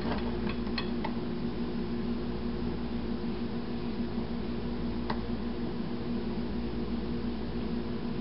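A steady low hum with a few faint soft clicks in the first second and one more about five seconds in.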